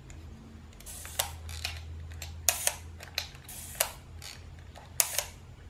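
Canon Demi EE17 half-frame camera's shutter and winding mechanism worked by hand: a run of sharp mechanical clicks with short ratcheting in between, including two closely spaced click pairs, with the shutter set to 1/8 s.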